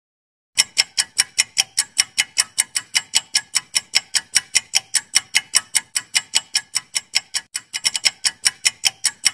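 Countdown-timer ticking sound effect: a clock ticking fast and evenly at about five ticks a second, starting about half a second in. Near the end the ticks briefly come closer together.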